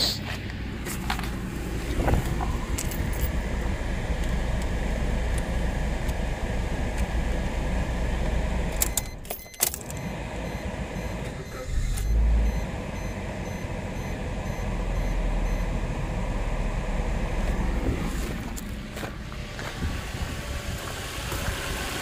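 A 2011 Suzuki SX4's 2.0-litre four-cylinder engine idling. About twelve seconds in, the ignition key is turned with a jangle of keys and a short loud burst, and the steady idle carries on.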